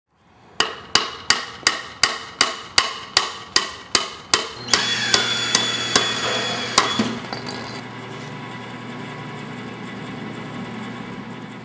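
A hammer strikes a wooden 2x4 in rapid, even blows, about three a second. After about four and a half seconds a steady machine hum with a whine joins in under a few more blows, and then carries on fainter.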